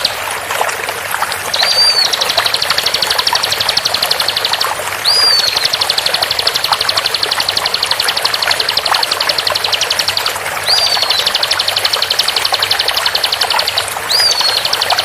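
Bar-winged prinia (ciblek) song in its fast 'tembakan' style: a very rapid, dense run of sharp repeated high notes, broken four times by a brief gap and a single rising-then-falling whistle. A steady hiss of flowing water runs underneath.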